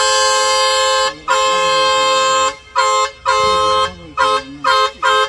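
A two-tone vehicle horn honking: two long blasts of about a second each, then a run of shorter, quicker toots.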